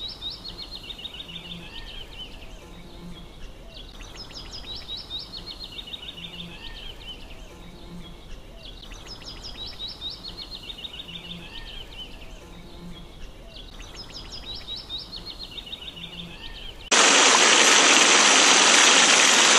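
A bird repeats the same short song four times, each a quick run of notes sliding down in pitch, over faint outdoor background noise. Near the end a loud rush of spraying, splashing water starts suddenly and holds steady.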